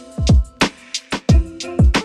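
Background music with a steady beat: deep kick drums that drop in pitch, sharp drum hits and short held melodic notes.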